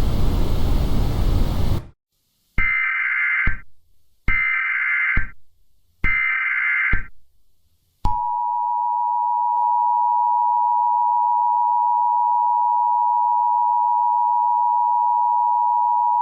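Emergency Alert System tones. A hiss of noise cuts off, then come three one-second squawks of SAME header data, then the EAS attention signal: a steady two-tone beep held for about eight seconds.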